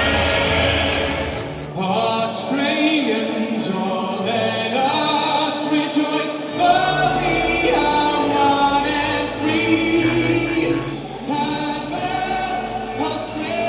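Music with singing: a sung melody, choir-like, over accompaniment.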